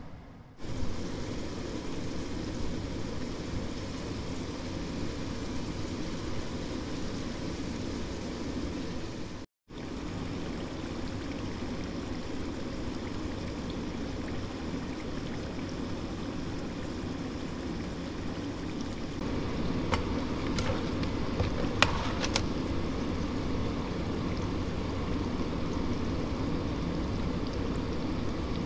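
Sweet potato strips frying in hot oil in a pan: a steady sizzle, broken off briefly about nine seconds in, with a few sharp clinks of a metal utensil on the pan about twenty seconds in.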